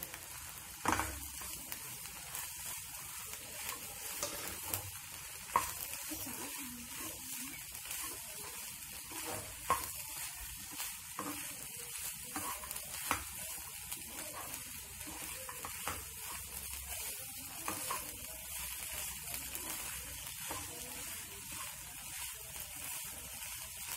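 Puffed-rice upma frying with a steady sizzle in a non-stick pan as it is stirred with a spatula. Scattered short scrapes and taps of the spatula against the pan come through.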